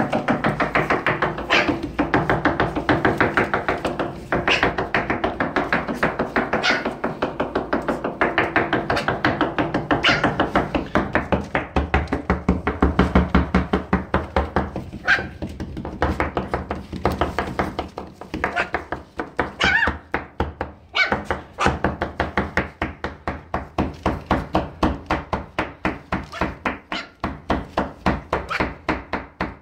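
Background music with a steady beat, with a few short high puppy squeaks in the second half.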